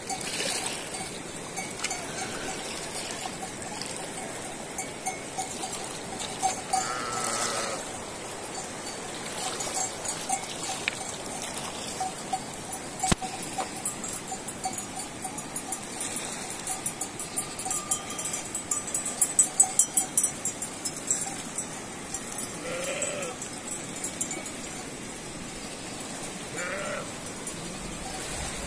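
A flock of sheep and goats: bells clanking, hooves clicking on loose river stones in a busy patch around the middle, and a few short bleats near the end, over the steady rush of a river.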